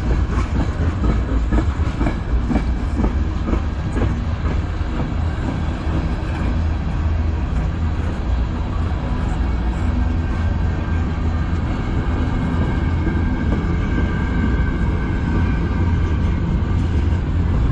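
Freight cars of a CN manifest train, tank cars and covered hoppers, rolling past close by: steel wheels on rail giving a steady low rumble, with a run of sharp wheel clicks during the first few seconds.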